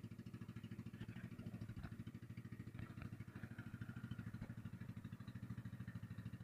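Small engine of an outrigger boat running steadily, a rapid even putter with no change in speed.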